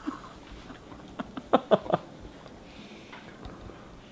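Dogs playing tug-of-war over a rubber bone toy held in a man's teeth, with a quick run of about four short vocal sounds about a second and a half in.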